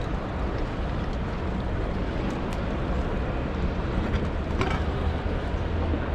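Steady background hubbub of a busy exhibition hall: a low, even wash of distant crowd noise and hall ambience, with a few faint clicks.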